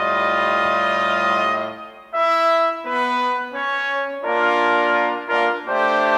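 Brass quintet playing. A held chord over a low bass note fades out a little under two seconds in, followed by a string of shorter chords and phrases broken by brief gaps.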